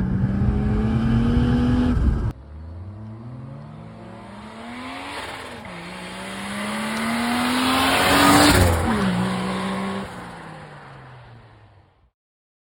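Turbocharged Lexus IS200's 1G-FE two-litre straight-six pulling hard with its pitch rising, cut off abruptly about two seconds in. It is then heard accelerating again with a brief drop in pitch at a gear change, loudest about eight seconds in, then dropping in pitch and fading away.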